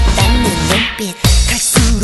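Up-tempo K-pop dance track with a heavy kick-drum beat and bending vocal lines. The beat breaks off briefly about a second in, then comes back.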